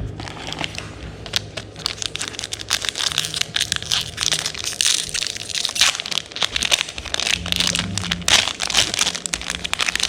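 Crinkly foil wrapper of a Magic: The Gathering booster pack crackling and crinkling continuously in the hands, with many sharp little cracks.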